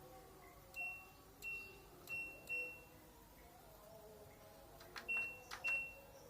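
Control-panel buttons of an LG front-loading washing machine being pressed, each press a click followed by a short electronic beep: four beeps in the first three seconds, then two more near the end.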